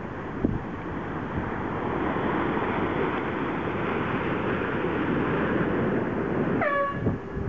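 Wind rushing over the microphone and choppy bay water, a steady noise with a brief bump about half a second in. Near the end comes one short cry that falls in pitch.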